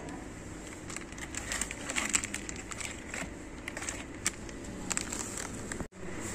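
Plastic spice-mix sachets (Ching's Schezwan Fried Rice Masala) crinkling and crackling as a hand pulls them from a shelf box. The crinkling breaks off abruptly near the end.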